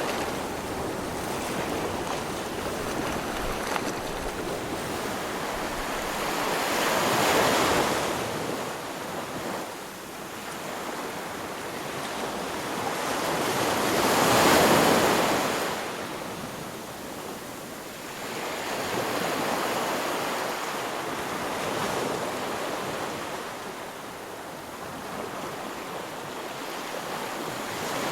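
Surf: waves washing in, a steady rush of water that swells and falls in slow surges, loudest about seven and fourteen seconds in.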